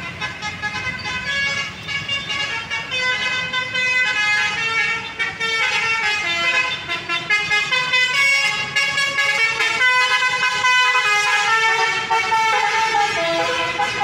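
Telolet basuri, a bus's multi-tone horn, playing a melody: a run of held notes stepping up and down in pitch, loud and without a break, over road traffic.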